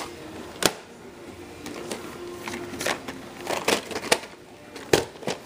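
VHS tape cases being handled: scattered plastic clicks and taps as the tapes are picked up and turned over, over a faint steady hum.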